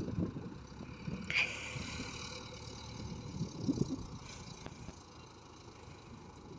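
JCB backhoe loader's diesel engine running faintly as the machine drives along a dirt track, with a brief sharp sound about a second and a half in.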